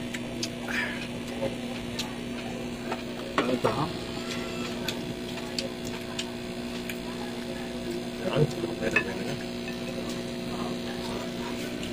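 Eating at a table: chewing and scattered light clicks of wooden skewers against cups and a glass bowl, over a steady low hum.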